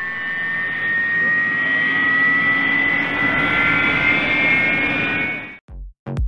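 Radio-controlled model airplane's motor and propeller giving a high whine that grows louder and rises slightly in pitch as the plane passes, then cuts off abruptly near the end. A few thumping electronic-music beats follow.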